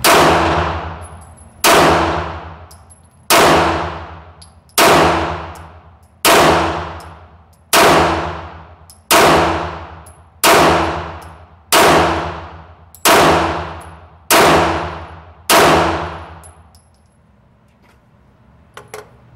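Twelve 9mm pistol shots from a Glock 34 Gen 4, fired at a slow, steady pace of about one every one and a half seconds. Each shot has a long echoing decay inside the indoor range. A few faint clicks come near the end, after the shooting stops.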